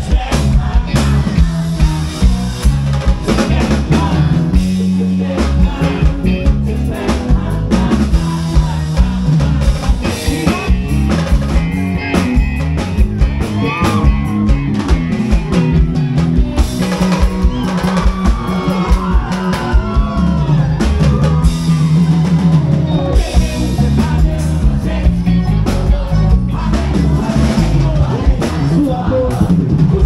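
Live band playing an upbeat song: a drum kit keeping a steady beat under bass, guitars and accordion, with sung vocals in places.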